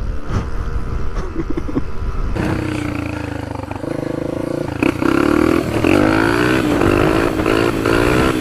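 Motorcycle engine running at low revs in street traffic, then, after a cut about two seconds in, a Honda dirt bike's engine revving hard, its pitch rising and falling again and again and getting louder about halfway through.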